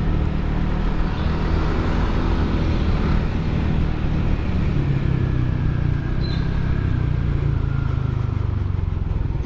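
Yamaha NMAX 155 scooter's single-cylinder engine running steadily through a ROB1 Racing aftermarket exhaust, a not-very-noisy note whose pitch eases slightly lower about halfway through.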